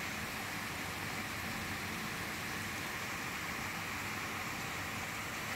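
Torrential rain falling steadily, an even hiss with no let-up.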